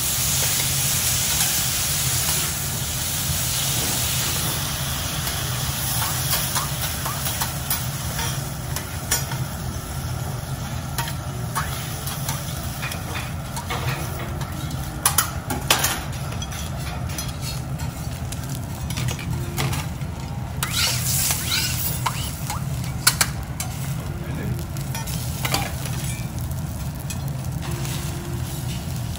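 Wagyu beef and bean sprouts sizzling on a hot steel teppanyaki griddle, steady throughout, with scattered sharp clicks and scrapes of metal spatula, knife and fork on the griddle plate.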